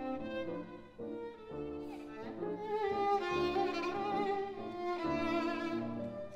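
Violin and Steinway grand piano playing together: the violin sings a melody with vibrato that climbs higher in the middle of the passage, over repeated low piano notes.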